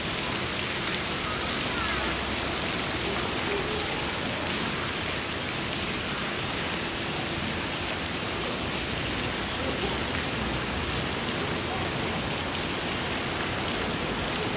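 Steady, even hiss of falling water, with faint distant voices underneath.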